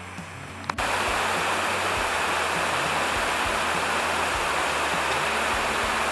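Mountain waterfall pouring down rock slabs: a loud, steady rush of water that cuts in suddenly after a click just under a second in.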